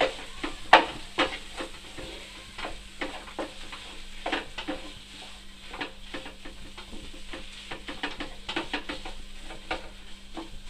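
A spoon scraping and knocking against a hot pan as spiced mashed-potato filling is stirred and mashed, over a light sizzle of oil. The knocks come irregularly, and the two loudest fall right at the start.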